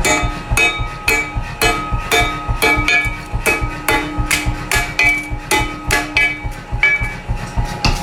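Background music with a steady beat: bright, bell-like or plucked notes struck about twice a second.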